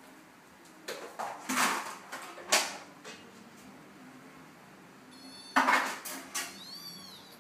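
A Siamese cat and kitten scuffling on a hard floor: paws and claws scrabble and slap in quick clattery bursts in the first three seconds and again near six seconds. Near the end comes a short high-pitched squeak.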